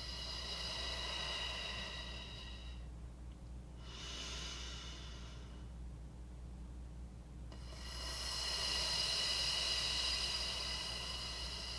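A person breathing slowly and audibly, with air hissing in and out. The longest and loudest breath begins about eight seconds in: a drawn-out hissing exhale on an "fff" sound.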